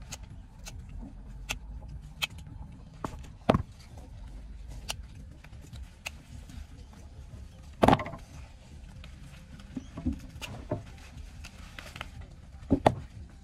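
Hand-picking grapes: irregular sharp snips and clicks of secateurs cutting bunches from the vine, with louder knocks about a third of the way in, midway and near the end, over a low steady rumble.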